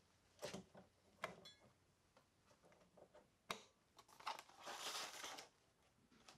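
Quiet handling noises at a workbench: a few sharp clicks and knocks in the first half, then about a second of dry rustling and scraping near the end as a strip of stick-on walnut edge banding is pulled from its roll.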